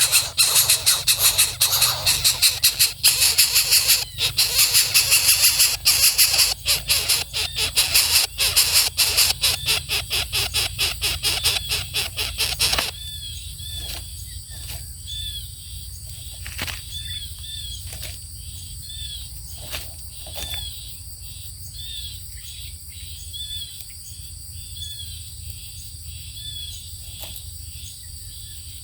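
Loud, harsh, high-pitched squealing pulses rapidly for about thirteen seconds, then stops abruptly. After it come quieter short chirps repeated about once a second over a steady high hum.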